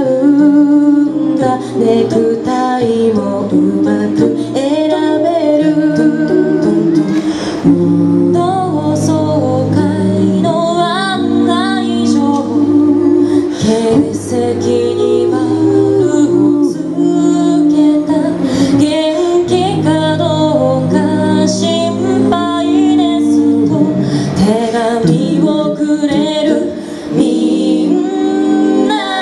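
Four-part a cappella vocal harmony, sung live through microphones and a PA system by four voices, with no vocal percussion or bass part. Held chord tones sit underneath while a melody line moves above them.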